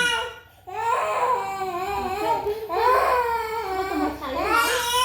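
A toddler crying, a wavering wail that breaks for a short breath about half a second in and then goes on.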